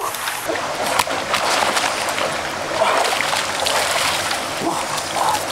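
Water splashing and sloshing as a person swims and thrashes through a stream pool, then hauls himself out onto a rock with his legs kicking the water, in a steady stream of irregular splashes.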